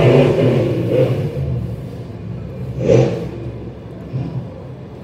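Two monster truck engines running hard in a side-by-side race, loud at first and fading as the trucks pull away, with a brief louder burst about three seconds in.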